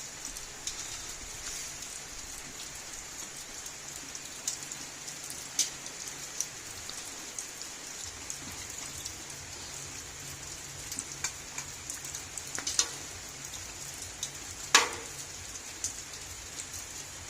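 Steady rain falling on a surface, a continuous hiss with scattered sharp drips or knocks, the loudest about fifteen seconds in.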